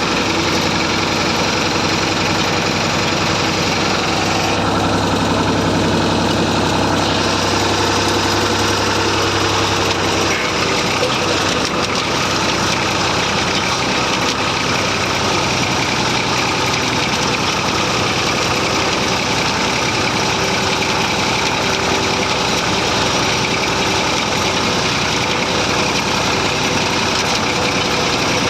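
Massey Ferguson 35 tractor engine running steadily, its note changing about ten seconds in.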